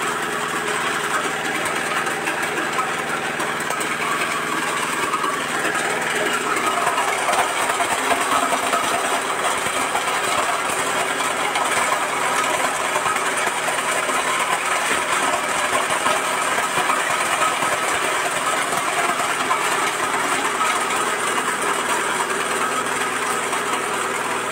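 Areca nut cracking machine running, driven by a small stationary petrol engine: a steady engine drone under a dense rattle of nuts being cracked, getting louder from about seven seconds in.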